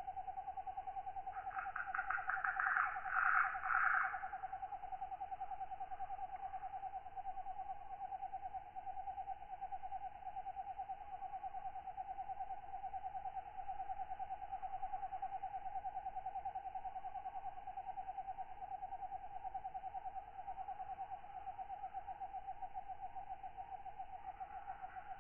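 Katydids calling at night: a continuous, rapidly pulsing trill, with a louder burst of raspy pulsed calls about two seconds in.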